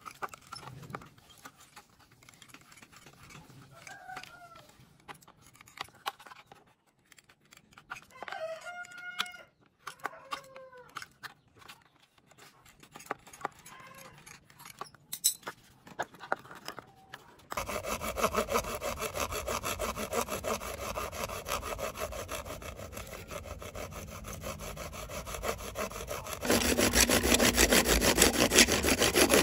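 Metal snips cutting a plastic bottle, a few sharp snips, with birds calling now and then. Then, a little over halfway in, a thin spiral saw blade sawing through a pipe: a steady fast rasp that grows louder near the end and is the loudest sound here.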